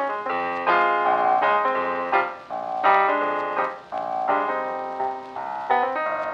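Background instrumental music with held chords and quick runs of notes.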